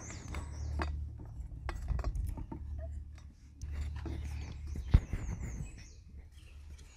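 Small clicks and taps of needle-nose pliers handling a plastic fuel line and its connector on a leaf blower engine, with one sharp click about five seconds in, over a low rumble.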